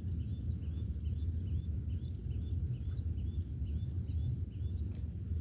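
A small bird calling a short, repeated chirp about twice a second over a steady low rumble.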